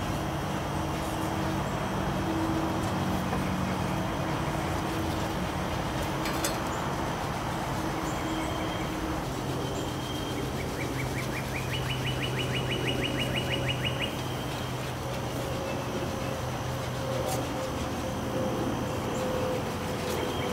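A steady low engine hum whose pitch shifts about halfway through. A bird gives a rapid trill for a few seconds in the middle.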